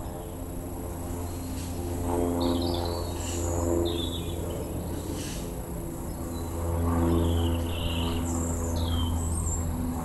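Birds chirping in short, scattered calls over a steady low hum.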